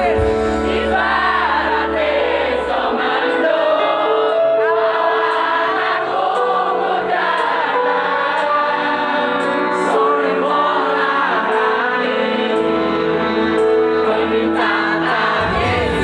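Live band music with many voices singing over steady held chords, recorded loud from within a concert crowd. The bass drops away about two and a half seconds in and comes back near the end.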